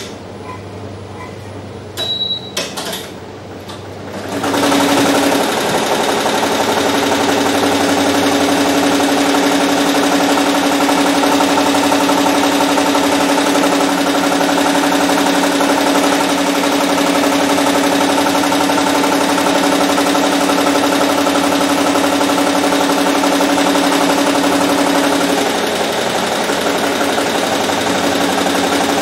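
Barudan multi-needle embroidery machine starting up about four seconds in, after a short beep and a few clicks, then running steadily as it stitches a logo onto a trucker cap.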